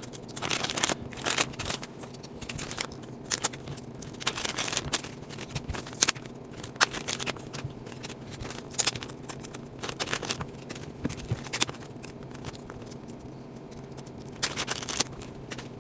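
Small packages of scale accessories being opened and handled by hand: irregular rustling and crinkling of packaging with scrapes and small clicks and taps.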